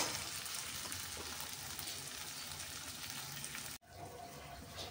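Tamarind-and-brinjal gravy sizzling steadily in oil in a kadai, simmering until the oil separates. The sizzle cuts out for an instant just before the end and comes back fainter.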